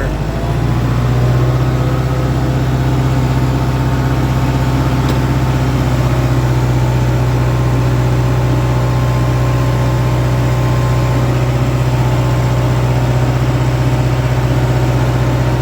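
Kubota M59 tractor loader-backhoe's diesel engine running steadily under load while the tractor drives through a steep section. It steps up in pitch just after the start, then holds an even drone.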